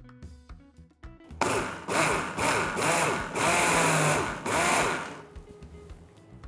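Electric mixer grinder pulsed in several short bursts, its motor speeding up and falling back each time, grinding chopped mint in sugar syrup fine. The bursts start about a second and a half in and stop about five seconds in.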